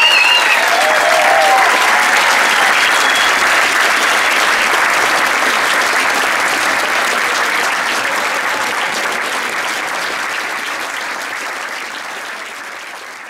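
Theatre audience applauding at the end of a musical number, with a few cheers near the start; the applause dies away gradually.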